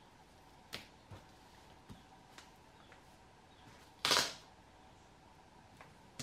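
Duct tape and a woven plastic feed bag being handled as small strips of tape are pressed down: a few faint clicks and rustles, and one short, loud rasp of tape about four seconds in.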